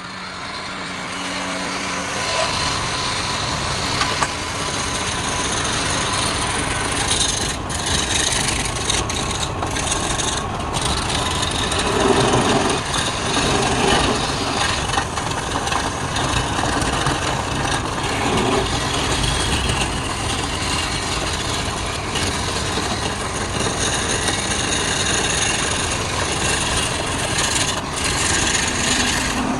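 Wood lathe running with a turning tool cutting into the spinning wood, a steady scraping over the machine's running noise.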